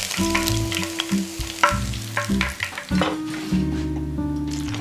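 Chicken thigh karaage pieces crackling and sizzling in hot deep-frying oil at the end of the first fry, as they are lifted out with chopsticks. The crackle thins out about three seconds in, leaving calmer oil. Background music plays throughout.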